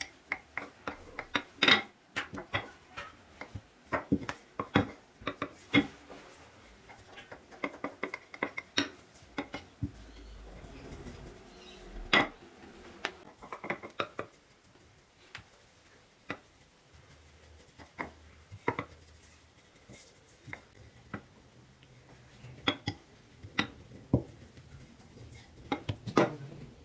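Wooden rolling pin knocking and clacking on a stone countertop while thin dough rounds are rolled out, in irregular sharp knocks about once or twice a second.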